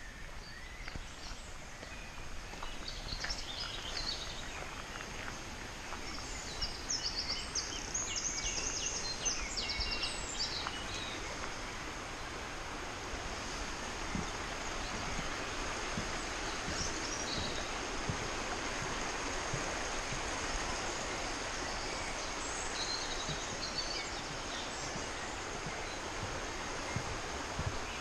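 Steady rush of a woodland stream. Songbirds sing phrases of quick repeated high notes, mostly in the first half. Faint footsteps of someone walking.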